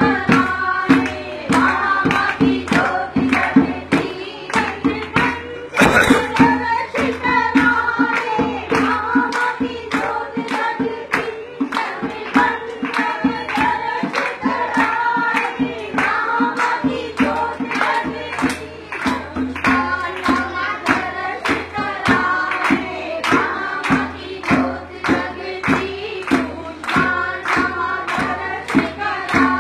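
A group singing a devotional hymn (mangal path) to the goddess Jeen Mata, with hand-clapping keeping a steady beat about twice a second and a steady held tone under the voices.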